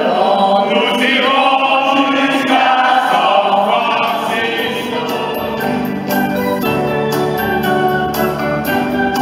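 A mixed choir singing; about four seconds in the voices give way to an electronic keyboard with an organ sound playing held chords over a steady bass.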